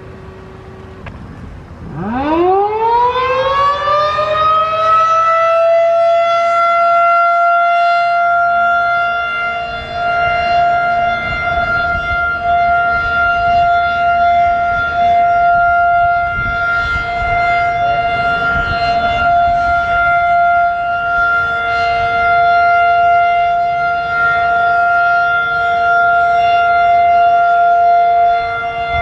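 Federal Signal 2001-DC electromechanical outdoor warning siren winding up about two seconds in, its pitch rising quickly and then holding one steady tone: the Full Alert test signal.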